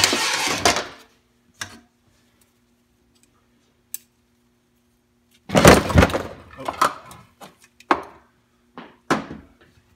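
Metal 4L80E transmission parts being handled: a short scraping clatter at the start, a longer, louder clatter and scrape about five and a half seconds in, and a few single knocks in between and after.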